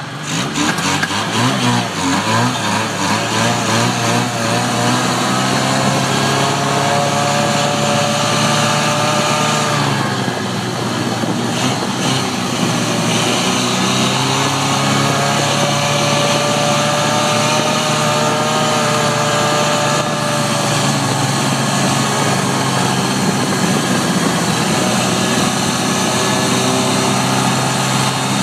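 Vintage snowmobile engine running under way, its pitch climbing over the first several seconds, dropping back about ten seconds in, then climbing again and holding fairly steady.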